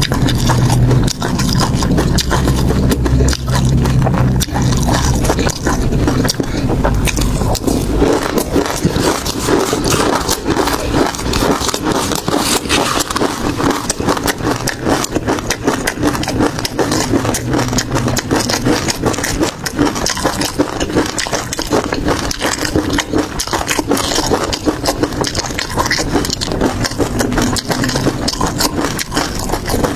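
Close-miked eating sounds: dense, continuous crunching and crackling of seafood being chewed, with heavier low thuds for the first several seconds.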